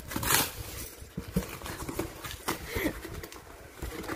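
Corrugated cardboard box being torn open by hand: irregular ripping, crinkling and scraping of packing tape and cardboard flaps, with the loudest tear about a third of a second in.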